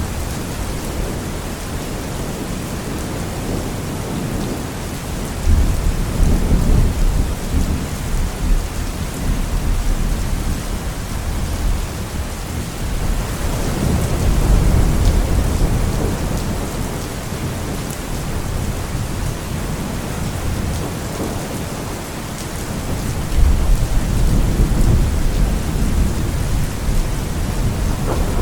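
Steady heavy rain with rolling thunder: three low rumbles, each swelling suddenly and dying away over a few seconds, about a third of the way in, near the middle and near the end.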